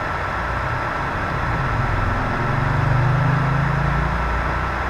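Steady mechanical hum and hiss, with a low engine-like drone that swells for about two seconds in the middle and then fades.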